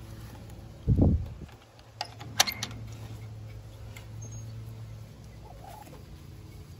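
Wooden, wire-mesh chicken coop door being handled and opened: a dull thump about a second in, then a few sharp clicks a second later.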